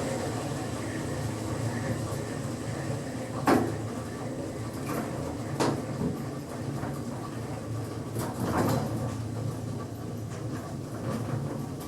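Lift car travelling down between floors: a steady low hum of the car in motion, with a couple of sharp knocks and a brief swell of rattling noise.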